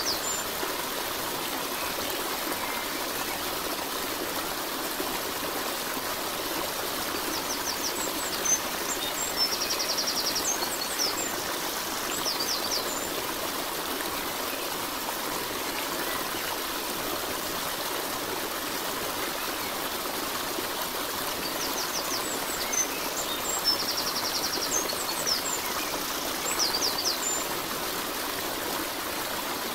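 Steady rushing water of a stream, with short bursts of bird song twice: about a third of the way in and again past two thirds.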